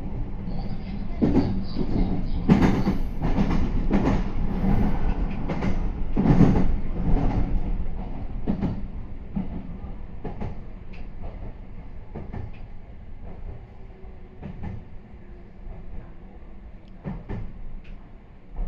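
Meitetsu 3500 series electric train running, its wheels knocking over rail joints in quick sharp strokes during the first half. The knocks then thin out and the noise gets quieter as the train slows toward a station stop.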